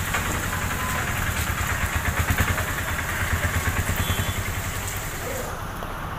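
An engine idling with a rapid, even low throb that is strongest around the middle, over a high hiss that drops away near the end.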